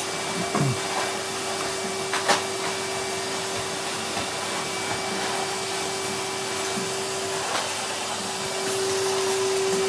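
Henry cylinder vacuum cleaner running steadily, a motor hum with one held tone. A short knock about two seconds in, and the hum gets a little louder near the end.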